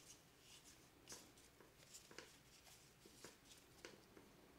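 Faint handling of 2020 Topps Gypsy Queen baseball cards: card stock sliding and flicking against card stock as a stack is thumbed through by hand, a handful of soft swishes and ticks scattered through the moment.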